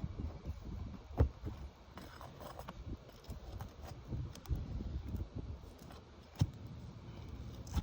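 A roofing tool being worked under brittle three-tab asphalt shingles, with irregular scraping clicks and knocks, sharpest about a second in and again near the end. The shingles are too brittle to be repaired and are being damaged by the prying.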